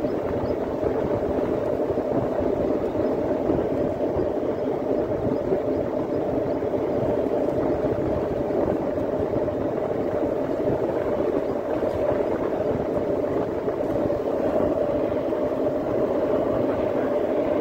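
Steady running noise of the moving vehicle carrying the camera, a constant hum and rush at an even level with no distinct events.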